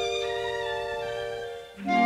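Orchestral background music: strings hold a sustained chord that fades away about a second and a half in, then a new, louder phrase begins just before the end.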